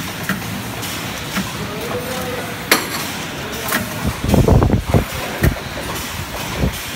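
Factory floor of running tube-bending machines: a steady machine hum with sharp clicks every second or so and a run of heavy thumps from about four to five and a half seconds in.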